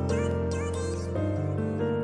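Background music: held synth and keyboard notes over a bass line that changes note about every second, with short sliding notes on top.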